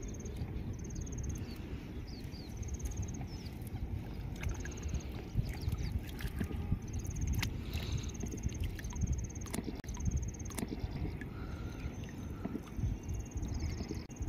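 Water sloshing and splashing at the river's edge as a hooked fish is hauled in on a hand line, with a few sharp splashes or knocks in the middle, over a steady low rumble of wind on the microphone. High, pulsed chirps recur every second or two.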